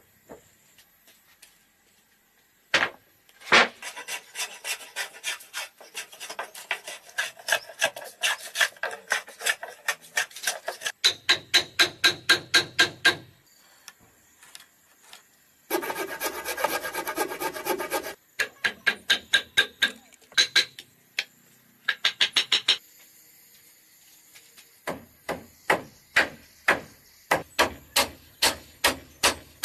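Hand tools working wooden boards: runs of quick, rhythmic rasping strokes on timber, broken by short pauses, after a couple of sharp wooden knocks near the start.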